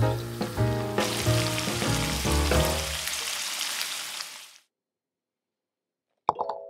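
Shrimp and sliced garlic sizzling in hot olive oil in a cast-iron skillet, with a lo-fi music beat and bass over the first half. The sizzling fades out about four and a half seconds in, and a chiming melody starts near the end.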